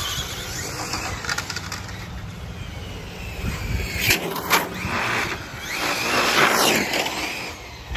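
Hobao 1/8 GTB on-road RC car's 2700KV brushless motor and spur-gear drivetrain whining, with tyre hiss on the asphalt, rising and falling in pitch as the car speeds about. It is loudest as the car passes close, about six seconds in, with a couple of sharp clicks shortly before.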